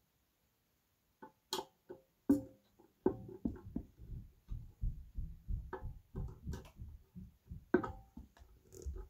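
Hands handling and working on a ceiling fan motor: a few sharp clicks about a second in, then a run of irregular knocks, thumps and rattles.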